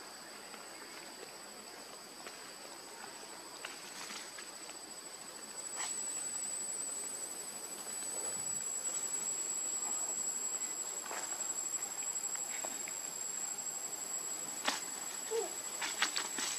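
Insects giving a steady high-pitched drone that grows louder about six seconds in, with a few light clicks and rustles near the end.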